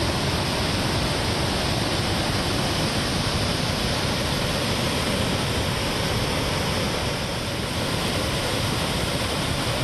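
Brown floodwater of a river swollen by heavy rain rushing and churning through rapids: a steady, loud, unbroken rush of water.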